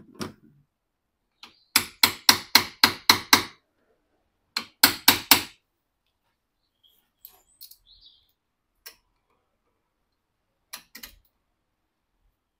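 Two quick runs of sharp metallic clicks, about four a second, then a few scattered fainter clicks, from a 13 mm wrench working the corroded nut on a car battery's hold-down strap.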